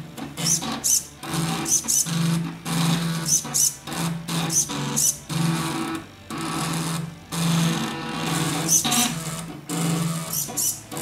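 Stepper motors of a pen plotter built from salvaged CD-drive mechanisms, buzzing in short stop-start runs as the carriage moves the pen to trace a drawing, with brief high chirps now and then.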